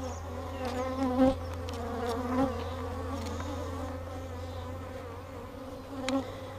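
Many honey bees buzzing close around, a wavering drone of overlapping wingbeats, with a couple of faint clicks. The bees are mad, defending their opened hive.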